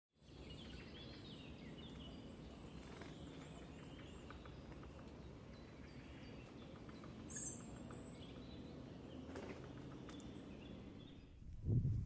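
Rural outdoor ambience: small birds chirping over a steady low background noise, with one sharp, high bird call about seven seconds in. Near the end, louder low thumps and rustles start.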